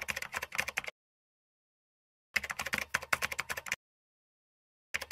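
Typing sound effect: rapid key clicks in short runs. One run ends about a second in, a second of about a second and a half comes in the middle, and a third starts near the end, with silent gaps between.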